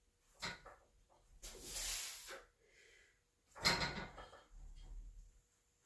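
Faint handling noises from a set of pull-ups: a click, a hissing stretch and a sharper knock-like burst, with quiet gaps between.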